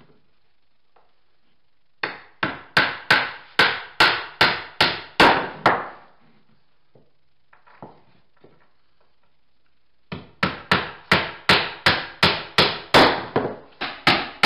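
Claw hammer driving ring-shank nails through OSB subfloor sheathing into the joists: sharp, even strikes about three a second, in two runs with a pause of about four seconds between them.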